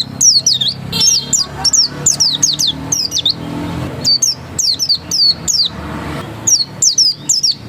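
A pleci dakun white-eye singing persistently: a rapid series of high, sharply falling chirps, delivered in quick clusters of two or three notes.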